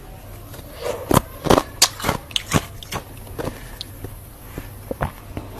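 Freezer frost being bitten and chewed: a quick run of sharp, loud crunches about a second in, then fewer, quieter crunches.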